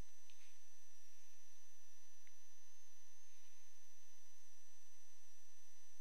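Steady electrical hum with a thin, high-pitched whine above it: the constant background noise of the narration recording, with nothing else sounding.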